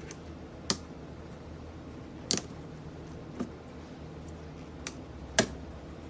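Sharp clicks and taps of an Acer Aspire mini laptop's parts being handled and taken apart, five of them at irregular intervals, over a steady low hum.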